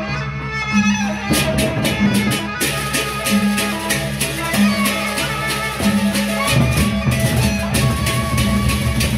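Gendang beleq ensemble playing: large double-headed barrel drums beaten over a repeating low tone pattern. Hand cymbals clash in a fast, steady rhythm from about a second in, and the low drumming gets heavier near the end.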